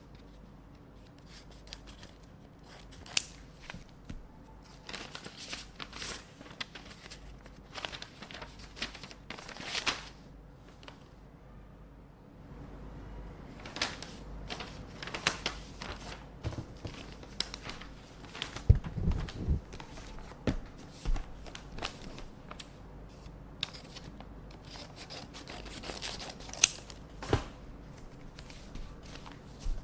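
Scissors snipping envelopes open, in short sharp cuts among paper rustling and tearing, with a few louder knocks of handling about two-thirds of the way in.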